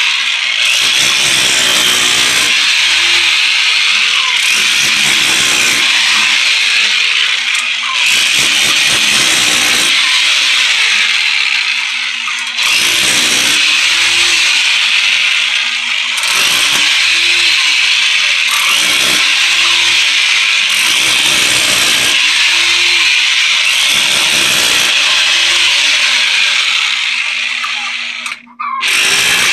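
Electric chipping hammer running continuously as it chisels into a tough layer of flooring. It eases off briefly partway through and stops for a moment near the end before starting again.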